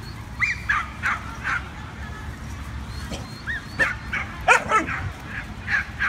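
Dogs yipping in a string of short, high-pitched calls as they meet and play. The loudest pair comes about four and a half seconds in.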